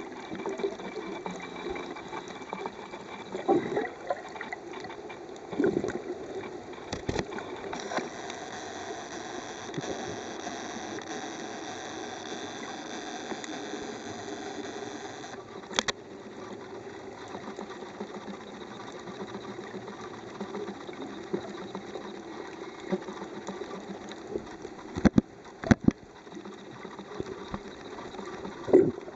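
Muffled water noise from a camera held underwater in the sea, steady throughout, with a few sharp clicks and knocks; the loudest two come close together near the end.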